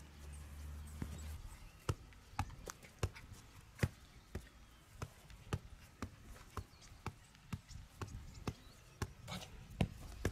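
A football being juggled off the feet: a short thud each time the ball is kicked up, about two a second, starting about two seconds in.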